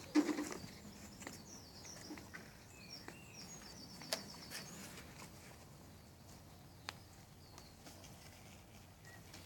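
Songbirds singing in the background, high warbling chirps over the first five seconds, with a short scuffing knock right at the start and two sharp clicks later on.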